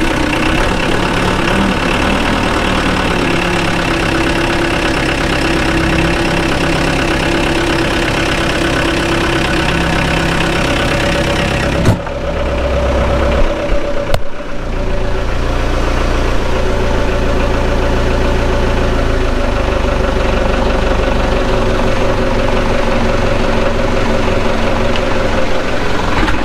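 Diesel forklift engine idling steadily just after a glow-plug cold start, left running to warm up. About halfway through the sound changes for a couple of seconds and ends in a single knock, then the steady idle carries on.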